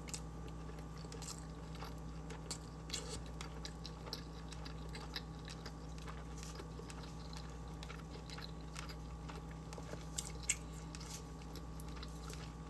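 A person chewing a bite of food: scattered soft clicks and smacks of the mouth over a steady faint hum.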